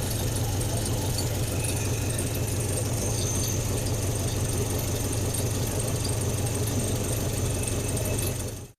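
1972 Chevrolet Cheyenne pickup's engine idling steadily, then cutting off abruptly near the end. It is running poorly because of vacuum leaks from fire-burnt vacuum caps, which the owner first suspects as a vacuum leak.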